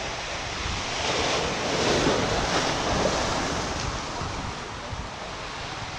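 Surf washing against the rocks of an inlet jetty: a wave swells about a second in and falls away a couple of seconds later. Wind buffets the microphone throughout.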